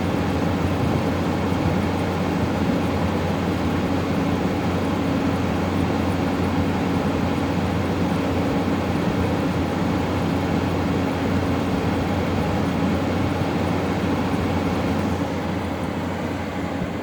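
Window air conditioner running, its compressor and fan giving a steady hum with rushing air.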